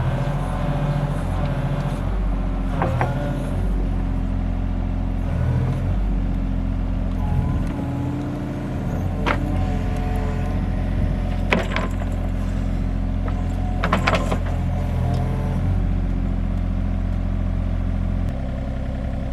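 John Deere 35G mini excavator's diesel engine running steadily, with several sharp metallic clanks, and the engine note drops shortly before the end. The machine is stuck and leaning in soft mud fill.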